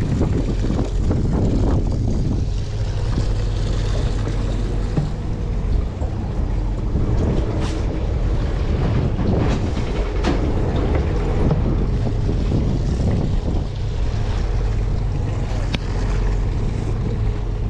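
Steady hum of a fishing boat's engine running, with wind buffeting the microphone and a few sharp clicks.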